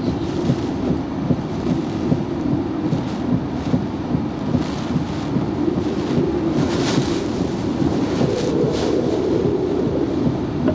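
Hurricane Ian's wind and rain pounding a vehicle driving through the storm: a heavy steady rumble with hissing gusts that surge and fade, the strongest about seven seconds in.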